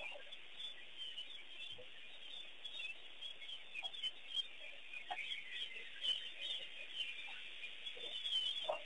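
Continuous chorus of many small birds chirping, with a few short, lower calls breaking in, louder near the end.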